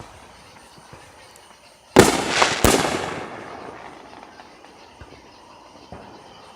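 Fireworks going off: a sharp bang about two seconds in and a second bang just after it, with crackling that fades over about a second. A few faint pops follow later.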